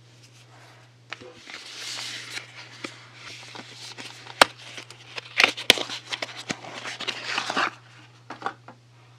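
Soap packaging being handled and unwrapped: rustling and crinkling with sharp clicks and taps. It starts about a second in and stops shortly before the end, with a couple of light taps after it.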